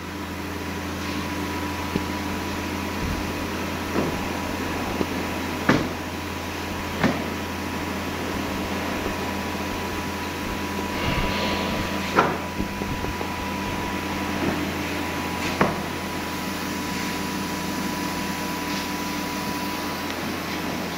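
Steady machine hum with a thin high tone under it, broken by about five sharp knocks and clacks of parts and sheets being handled.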